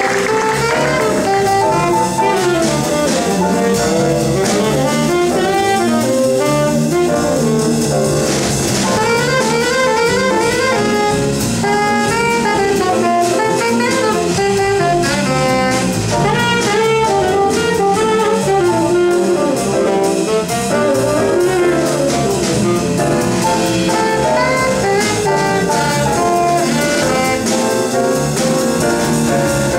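Live jazz combo playing an instrumental passage: saxophone leading with quick runs of notes over electric bass, drums and guitar.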